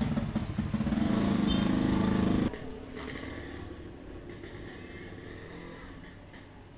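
A motor vehicle engine running close by, cutting off abruptly about two and a half seconds in, leaving a much quieter background.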